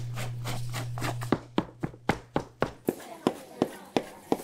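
Metal dough cutter chopping scallion bread dough into strips on a floured table: a steady run of sharp knocks, about three to four a second, beginning about a second in.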